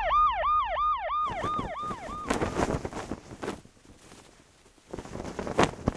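An emergency-vehicle siren in a fast yelp, about four rising-and-falling sweeps a second, fading out about two seconds in. A few scattered sharp cracks and knocks follow.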